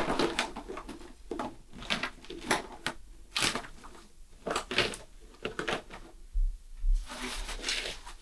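A motorcycle wiring loom being stuffed into a box: irregular rustling, crunching and clicking of wires and connectors being pushed down, with a longer rustle near the end.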